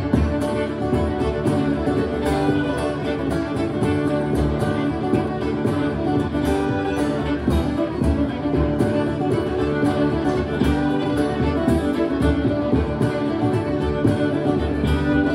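Two fiddles playing a Celtic reel over strummed acoustic guitar, with a steady driving pulse.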